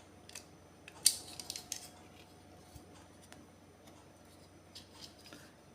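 Light clicks and taps of a pop-up floor outlet box's parts being handled: one sharp click about a second in, a quick run of smaller ones after it, and a few more near the end.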